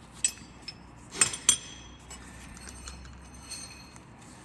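Steel hand tools clinking as a 21 mm socket or wrench is handled: a few sharp metallic clinks with a short ringing tail. The loudest pair comes just past a second in, followed by fainter taps.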